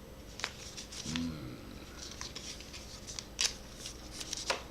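Magic: The Gathering trading cards being handled and slid against each other: a scatter of short, sharp clicks and rustles, with a brief low murmur about a second in.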